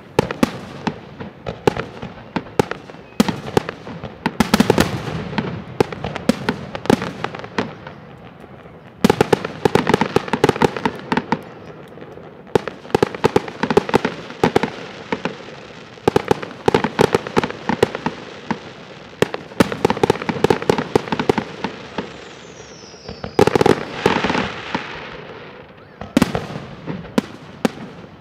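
Aerial fireworks display: rapid volleys of shell bursts, sharp bangs and crackling in dense clusters, separated by short thinner lulls.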